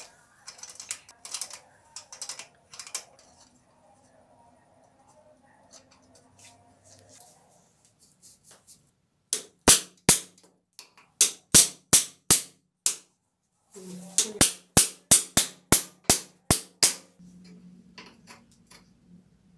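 Hammer blows on a tool held against the end of a bicycle handlebar: a series of sharp metallic strikes, about two a second, in two runs with a short pause between. Before them, a few seconds of light clicking and rattling from tool work.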